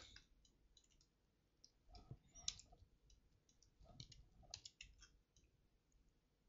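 Faint, scattered clicks of a computer mouse and keyboard, with small clusters about two seconds in and again around four to five seconds.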